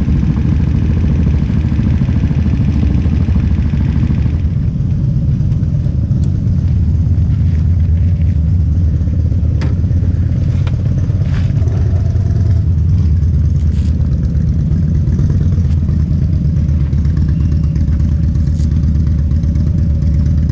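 Motorcycle engines idling, a steady low rumble, with a few faint clicks over it.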